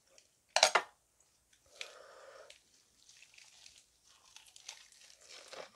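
Eating sounds from a close mouth. A short, loud burst of mouth noise comes about half a second in. Later, a bite is taken into a lettuce wrap of grilled meat, followed by crisp crunching and chewing.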